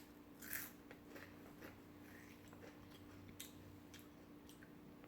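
Crunching on a regular potato chip: one crisp crunch about half a second in, then a few faint crunches of chewing.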